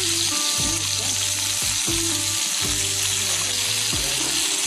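Pelmeni frying in a pan, a steady sizzle, with a spoon turning them in the fat.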